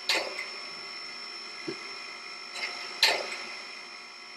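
SoundTraxx Tsunami2 sound decoder playing steam locomotive idle sounds through the Shay's speaker, still running on its keep-alive capacitor after track power has been cut. A steady whine with two short falling whooshes about three seconds apart.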